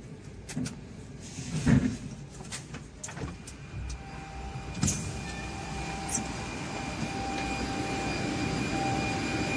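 A few knocks, the loudest about two seconds in, then a steady two-tone electric whine from a train at the station, with a rumble under it growing louder towards the end.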